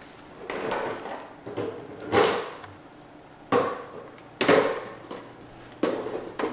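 Hard plastic knocking and clattering as pieces of a child's toy vanity are handled and set down on it: several sharp knocks, the loudest about two seconds in and again about four and a half seconds in.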